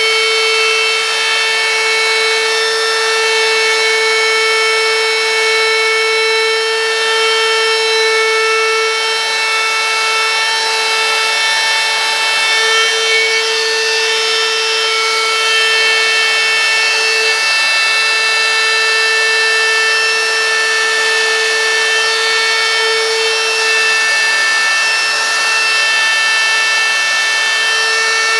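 Handheld electric router running at full speed with a steady high whine, its small carving bit cutting freehand into a wooden sign board. The pitch sags slightly now and then as the bit takes more load.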